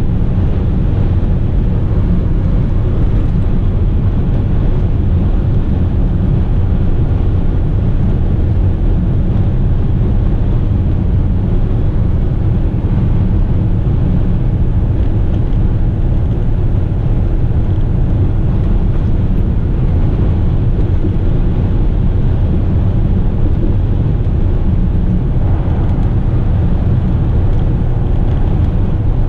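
Western Star tipper truck cruising at highway speed under a full load, heard from inside the cab: a loud, steady low drone of engine and road noise with no change in pace.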